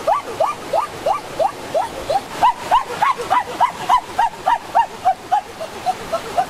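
Hen calling: a rapid, unbroken run of short rising squawks, about four a second, that drop a little lower and fainter near the end.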